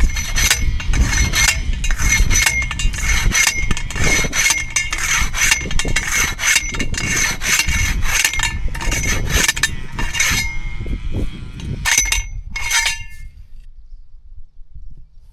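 Rapid, irregular clinking and scraping of metal, each stroke ringing briefly, stopping about thirteen seconds in.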